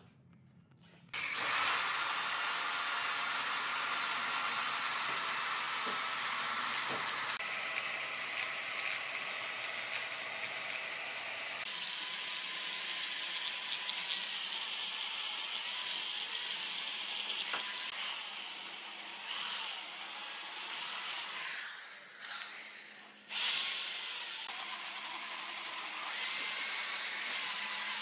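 Corded electric chainsaw running and cutting into a burnt log, starting about a second in. The motor's steady whine dips briefly near the end before the cut resumes.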